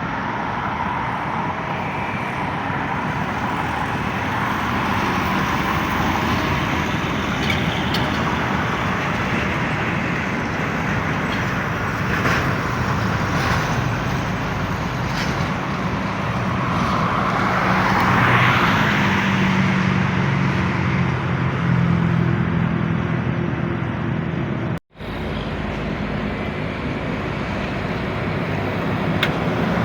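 Steady road traffic, with buses and other motor vehicles passing. About two-thirds of the way through, a heavy vehicle's engine drone and tyre noise swell as it passes close. The sound cuts out for an instant near the end.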